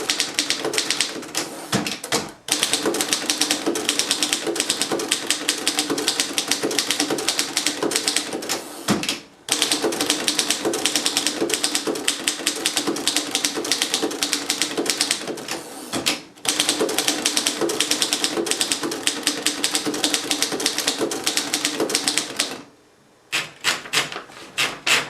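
1925 Underwood No. 3 standard manual typewriter being typed on quickly: a fast run of type-bar strikes, broken by brief pauses three times and a longer pause near the end before a few last keystrokes.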